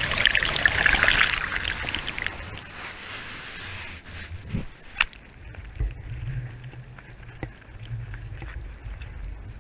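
Ocean surf washing over a low-mounted action camera: loud rushing, splashing water for about the first two and a half seconds, fading as the wave drains off. Then wind rumbling on the microphone, with a few sharp knocks, the loudest about five seconds in.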